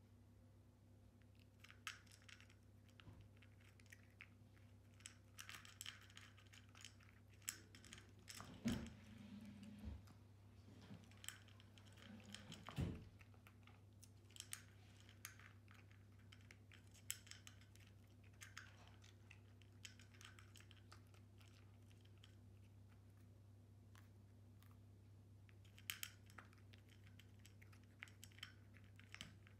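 A cat crunching dry kibble from its bowl: faint, irregular crisp crunches, with two louder knocks partway through, over a steady low hum.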